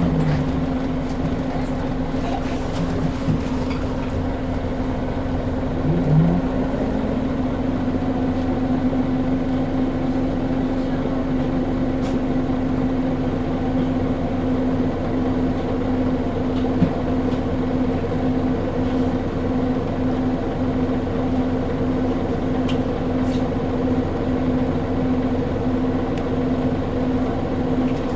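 Scania L94UB bus's 9-litre five-cylinder diesel engine running at an even, steady speed, a constant drone that holds its pitch.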